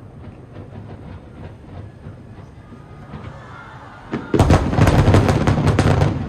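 Aerial fireworks going off: scattered pops and distant bangs, then about four seconds in a dense barrage of rapid bangs and crackles for about two seconds.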